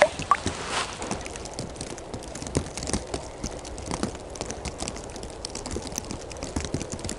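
Irregular soft crackling and taps of snow crunching and winter clothing rustling as a person shifts position, busiest in the first second, then lighter small ticks.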